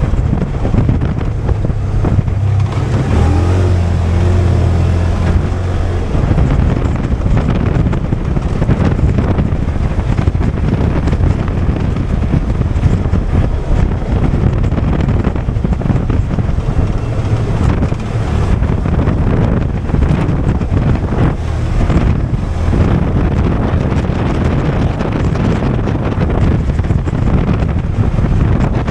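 Polaris 570 off-road vehicle's engine running as it rides along a trail, with wind rumbling on the camera microphone. A steady low engine tone is plain for the first few seconds, then gives way to a rough, fluttering rumble.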